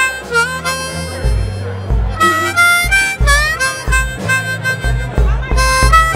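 Amplified blues harmonica solo, cupped against a vocal microphone, with its notes bent and sliding. Electric guitar and bass play a slow blues underneath.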